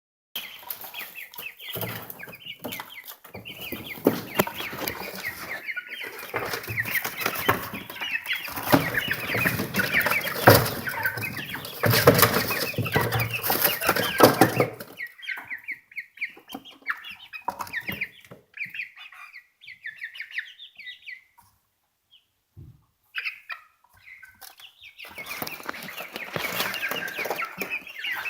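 Birds clucking and chirping, many short calls overlapping for the first half. The calls thin out to scattered ones in the middle and grow busy again near the end.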